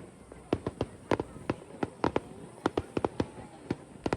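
Fireworks going off in quick, irregular succession: sharp bangs and pops, several a second, each with a short echo.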